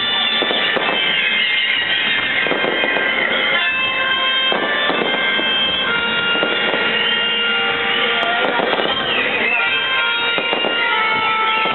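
Aerial fireworks shells bursting in a run of bangs every second or two, with tango music playing alongside in held, reedy tones.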